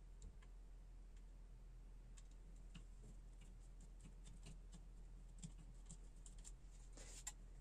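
Near silence with faint, scattered small clicks and taps from hands and a screwdriver handling a graphics card's fan and metal cooler frame, with a short scrape about seven seconds in.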